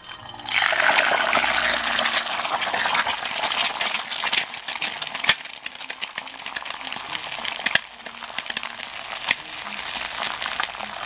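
An egg sizzling and crackling in a hot stainless steel frying pan. The sizzle bursts up loudly about half a second in as the egg hits the pan, then settles into steady frying with scattered pops.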